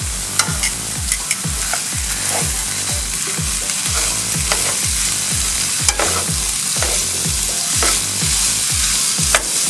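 Mixed ground meat sizzling in hot oil with diced onion and pepper in a pan, broken up and stirred with metal tongs that click and scrape on the pan, over a low regular beat.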